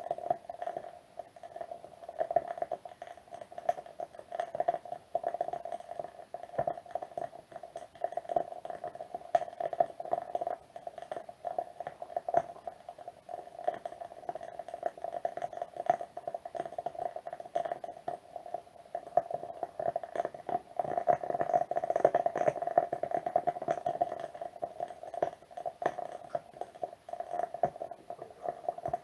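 Wood wick candle burning with a continuous soft crackle of small, rapid pops, busier and denser from about twenty seconds in.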